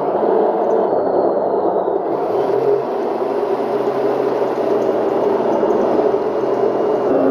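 RC tank sound unit playing a simulated tank engine running steadily through its small speaker, the sound shifting slightly about two seconds in.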